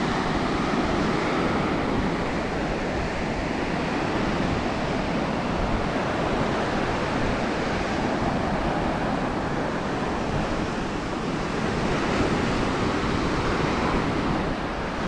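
Small ocean surf breaking and washing up a sandy beach: a steady rushing wash of waves.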